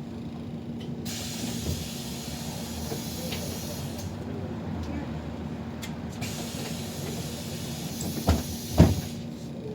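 City bus ride heard from inside: a steady low rumble with a faint hum, a hiss that comes in about a second in and again after about six seconds, and two short loud thumps near the end.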